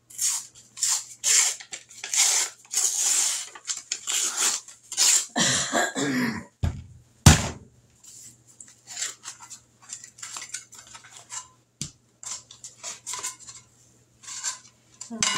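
Refrigerated biscuit dough can being opened: crinkling rips as its paper wrapper is torn off, then a sharp pop a little over seven seconds in as the cardboard tube bursts along its seam. Lighter rustling and clicks follow as the biscuits are pulled out of the can.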